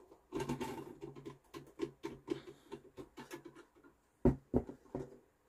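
The casing of a mechanical dial scale being handled and pried at by hand: scattered small clicks and scratches, with two sharper knocks about three-quarters of the way through. The side cover is stuck tight.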